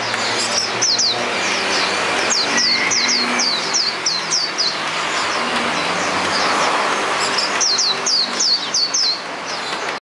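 Caged Hume's white-eye (pleci auriventer) singing runs of quick, high, downward-sliding notes, several a second, with a pause of about three seconds between two runs.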